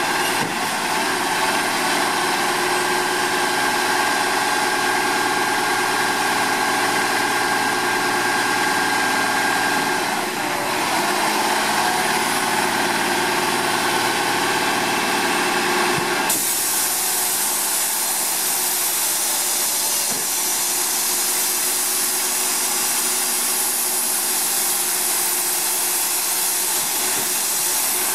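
Diesel engine of an Autocar WXLL garbage truck running steadily with several steady tones, while its Labrie Automizer side-loader arm holds a cart raised at the hopper. About 16 seconds in the sound changes abruptly to a steady hiss with the engine tones much weaker.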